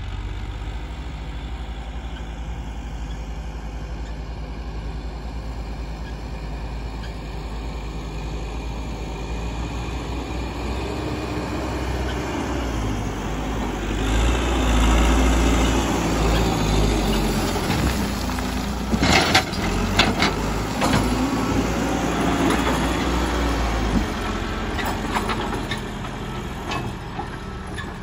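Caterpillar 434E backhoe loader's diesel engine running steadily as the machine drives with a loaded front bucket of soil. It grows louder about halfway through as it comes close, with a few sharp knocks a little past two-thirds of the way through, and eases off near the end.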